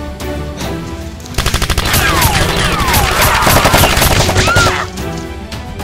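Rapid-fire machine-gun sound effect, dubbed in for a toy blaster, starting about a second and a half in and lasting about three seconds, with sliding whistle-like sweeps through the middle of it. Background music runs underneath.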